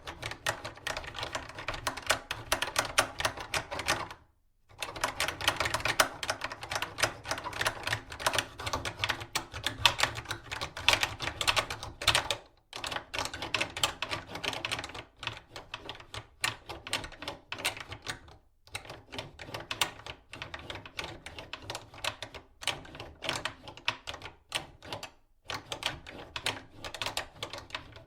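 Metal door latch being forced and worked back and forth: rapid clattering metal clicks in long runs, with brief pauses about four, twelve, eighteen and twenty-five seconds in.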